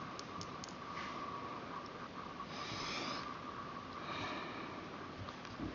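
Faint breathing close to the microphone, two soft nasal breaths about two and three seconds in, over a steady thin high tone. A few tiny clicks near the start and a soft low bump near the end.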